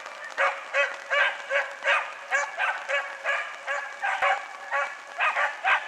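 Young Italian hare hounds (piccolo lepraiolo) giving tongue: a steady run of short, high yelping cries, about two or three a second, the voice a scenthound gives while working a scent trail.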